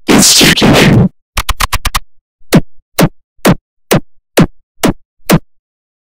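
Loud, distorted edited sound effects: a harsh burst about a second long, then a quick run of five short hits, then a string of separate whacking hits about twice a second, each falling in pitch.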